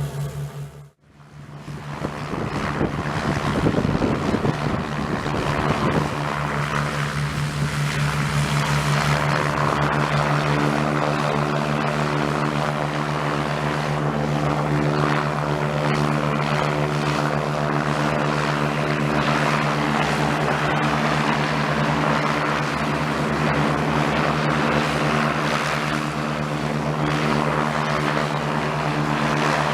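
Propeller aircraft engines running with a steady drone, after a brief drop-out about a second in.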